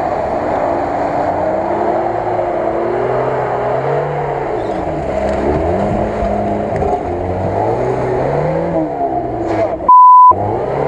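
Lada Niva engine revving up and down again and again as the 4x4 churns through deep mud ruts. Near the end the sound is cut by a short, loud bleep tone.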